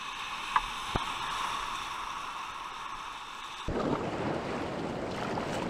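River water rushing and splashing around a whitewater kayak, with two sharp knocks about half a second apart near the start. About two-thirds of the way through, the water noise suddenly turns fuller and deeper.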